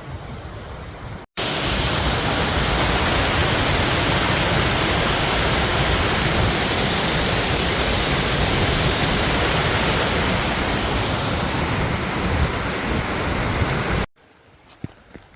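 Loud, steady rush of white water from a mountain stream, cutting in abruptly about a second in and cutting off abruptly near the end.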